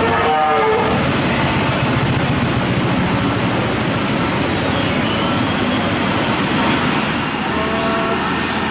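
Hitachi ZX200LC long-reach excavator running steadily as it works, its diesel engine and hydraulics making a loud, even mechanical noise with faint whines that rise and fall.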